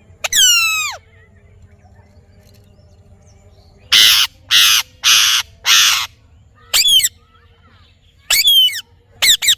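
Parrot calling: one falling whistle at the start, then four harsh screeches in a row midway, and a few short shrill calls near the end.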